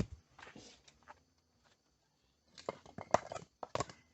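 Stones knocking and clacking together as they are handled and set around a fire pit: one sharp knock at the start, then a quick cluster of louder clacks near the end.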